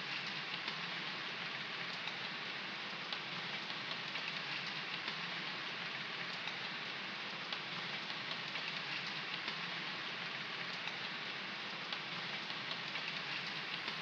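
Steady rain falling, with many small drops ticking on surfaces.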